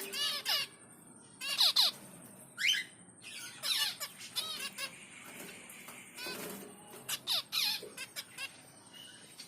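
Baby finches calling: bursts of short, quickly falling cheeps, several in a row, repeated about every second or two with short pauses between.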